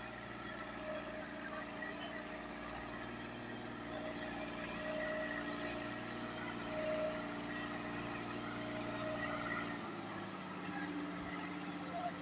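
New Holland tractor's diesel engine running steadily while hauling a heavy trolley load of sugarcane; its note changes about ten seconds in.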